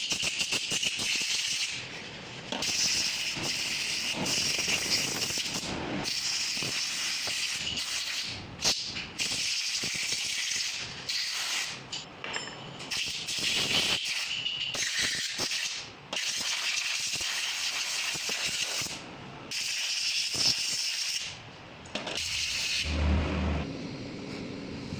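Pressurised spray hissing in repeated bursts that start and cut off abruptly, as power steering pump parts are blown or sprayed clean during the overhaul. A low hum comes in near the end.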